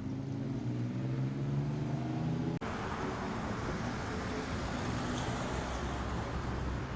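Road traffic: a car engine running with its pitch slowly rising for the first couple of seconds, then, after a brief break, a steady hiss of tyre and traffic noise.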